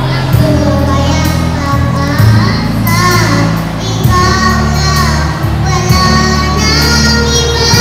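A young child singing a duet song into a microphone over backing music with a steady beat and bass line, amplified through the hall's sound system.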